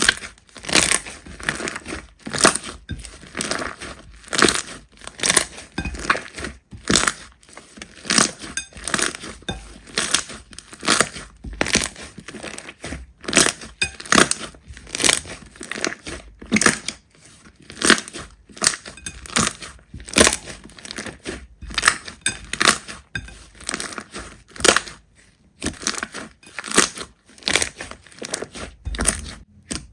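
Slime being pressed, squeezed and pulled by hand in a repeated run of short, noisy squishes, about one or two a second at an uneven pace.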